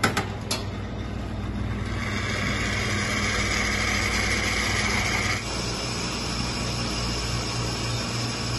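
Commercial espresso machine running hot water from its spout into a steel pitcher: a steady hiss of water and steam over the machine's low hum, with a couple of clicks right at the start as the button is pressed. The hiss changes character a little after five seconds in.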